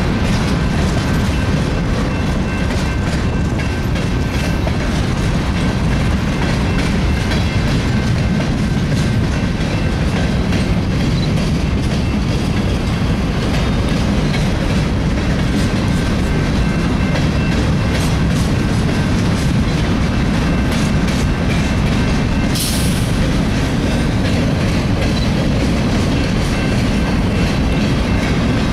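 Freight train of open hopper cars rolling steadily past: a continuous rumble and clickety-clack of steel wheels over the rail, with a brief high hiss about three-quarters of the way in.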